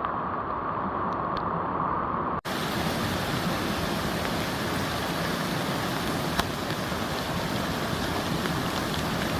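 Steady rushing of floodwater, with a momentary dropout about two and a half seconds in, after which the rush sounds fuller and hissier.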